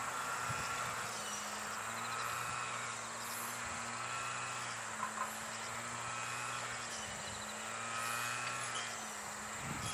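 Diesel railcar's engine humming steadily in the distance as it approaches slowly, with insects chirping in trilled bursts every second or two. Two soft knocks about halfway through.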